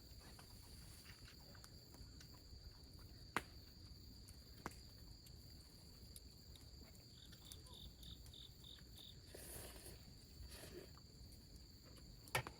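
Crickets chirring faintly and steadily, a high continuous trill. Near the middle one insect gives a quick run of about seven chirps, and there are two soft clicks early on.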